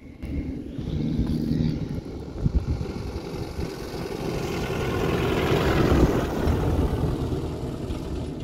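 A vehicle engine runs, joined by a rushing noise that swells to a peak about six seconds in and then eases off.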